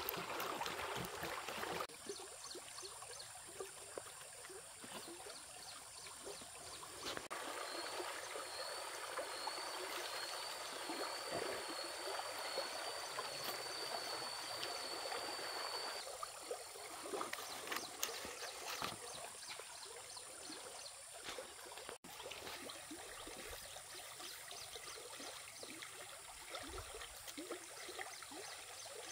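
Stream water running and trickling, with many small splashes and drips. For several seconds in the middle, a thin, high, wavering tone sits over the water.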